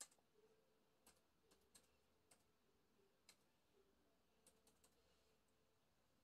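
Faint, irregular key clicks of a laptop keyboard being typed on, about a dozen scattered keystrokes.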